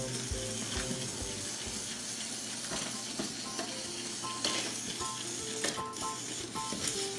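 A faint melody of short notes over a steady hiss, with a few sharp clicks.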